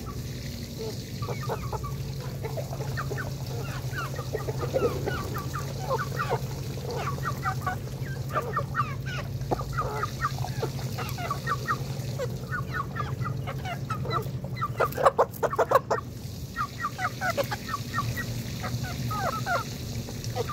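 A flock of young fowl calling in many short, repeated chirps, with a louder, denser run of calls about fifteen seconds in.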